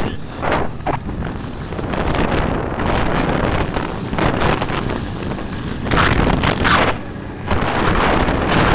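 Wind buffeting the microphone of a camera on a moving snowmobile, with the snowmobile running underneath as it rides a snowy trail. The rush swells and eases in waves and is loudest about six to seven seconds in.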